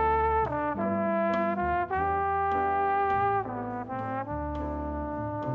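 Slide trombone playing a slow jazz ballad melody in long held notes that change pitch every second or so, getting softer after about three and a half seconds. Bass and light cymbal taps keep time underneath, about twice a second.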